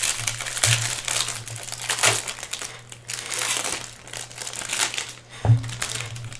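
Foil wrapper of a Bowman Draft trading-card pack crinkling in irregular bursts as it is torn open and peeled off the cards by hand, with one sharper knock about five and a half seconds in.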